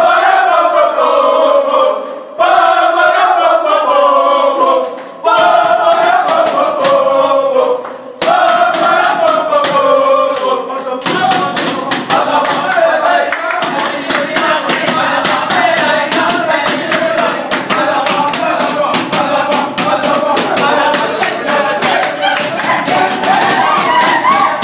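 A group of young men singing a victory chant together, in phrases of about three seconds with short breaks between them for the first ten seconds or so. After that the singing runs on without pauses and turns busier, with many sharp hand claps.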